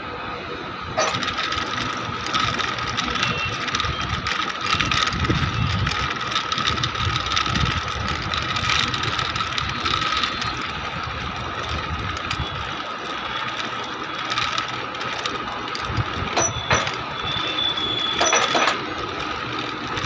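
Hoist machinery of a construction suspended platform running on its wire ropes: a steady mechanical whine with rapid clicking and rattling, starting about a second in.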